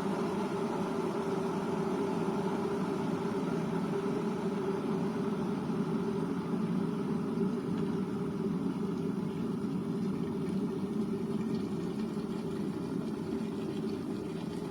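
Russell Hobbs Victory 2400 W electric kettle at a full rolling boil: a steady rumbling, bubbling noise that eases slightly near the end.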